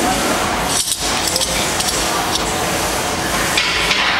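Steady room noise with a few light metallic clinks.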